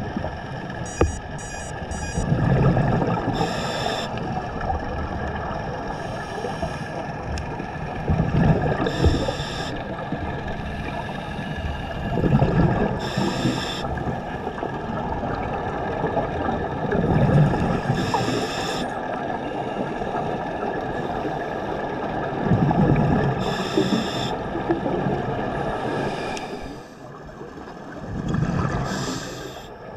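Scuba diver breathing underwater through a regulator: about one breath every five seconds, each a burst of bubbling exhaust followed by a short hiss.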